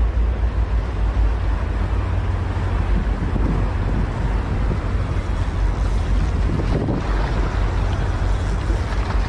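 Wind buffeting the microphone: a steady, fluctuating low rumble with a broad hiss over it.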